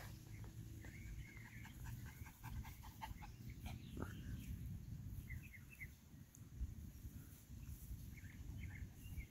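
Faint short chirping animal calls: a quick series about a second in, then a few more chirps near the middle and near the end, over a low steady outdoor rumble.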